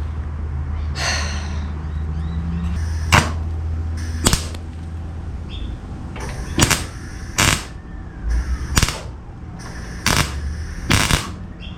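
Welder arcing in about eight short bursts while trying to tack a sheet-metal patch panel in place. The tacks won't take, which the welder puts down to the metal not being completely clean. A steady low hum runs under the first half.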